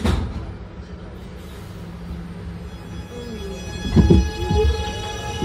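R211 subway train's Alstom OptONIX IGBT-VVVF propulsion powering up to depart: a short burst at the start, then steady running noise. About four seconds in come low thumps, and several steady high electronic whine tones from the inverter come in.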